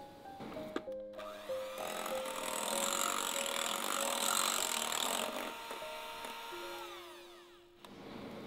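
Electric hand mixer running on low speed, its twin beaters whipping mocha whipping cream toward stiff peaks. The whirring starts about two seconds in and drops away after about five seconds.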